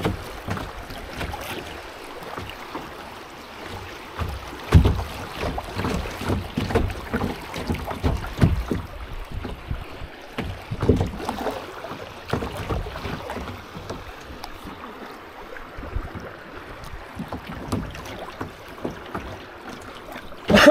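Kayak paddling on a river: paddle strokes splash and drip in the water, with irregular low knocks and thumps and wind buffeting the microphone.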